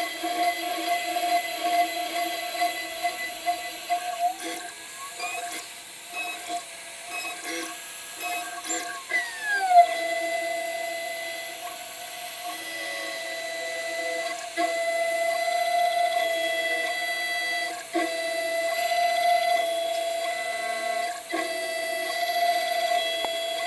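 A 6040 CNC router spindle whines steadily while a small end mill cuts an aluminium plate, with irregular scraping and ticking from the cut. About a third of the way in the pitch dips and glides before settling back to a steady tone.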